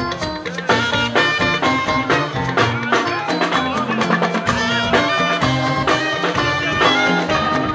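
Fuji music from a live band, loud and continuous: drums beating steadily under held melodic notes.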